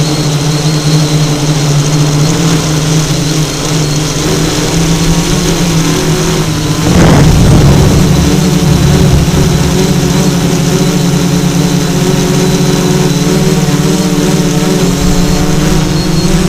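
Electric motors and propellers of a small FPV drone humming steadily. About seven seconds in there is a brief rush of noise, and after it the hum runs somewhat louder.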